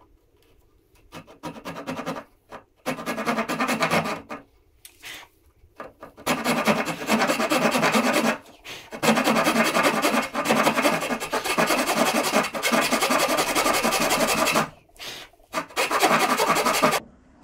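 Backed rip saw of about 12 teeth per inch cutting a tenon cheek in a board held in a vise, started on an angle. A few short, separate strokes start the kerf, then steady back-and-forth sawing follows, with a brief pause near the end before a few more strokes.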